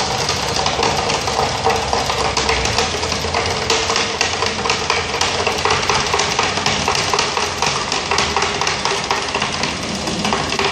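Small pump running steadily, drawing a coffee-and-water mix through diesel fuel filters, with a continuous dense rattle of small clicks.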